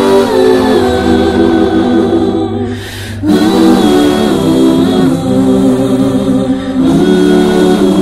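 Gospel music with a choir singing held chords over a steady bass line; the music dips briefly about three seconds in, then comes back.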